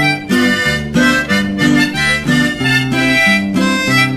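Instrumental break of a song: a harmonica melody over guitar and bass, with the notes changing in a steady rhythm.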